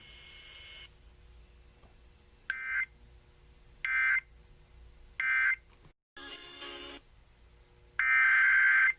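Emergency Alert System digital data bursts, a harsh two-tone warble: three short end-of-message bursts about a second and a half apart close the warning. A brief burst of other sound follows just after the middle, then a longer one-second SAME header burst near the end opens the next alert.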